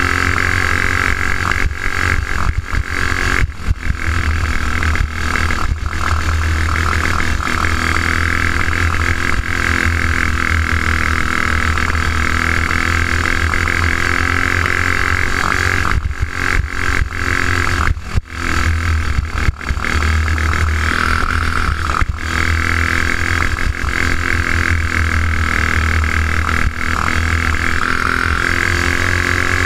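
Go-kart's single-cylinder engine running hard at racing speed, its note cutting out briefly several times over bumps, a sign of the spark plug cap having come loose.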